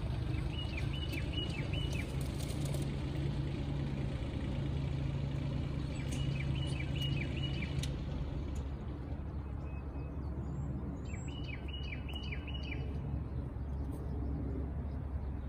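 A vehicle engine idling steadily as a low rumble, while a songbird calls three times in short runs of quick chirps.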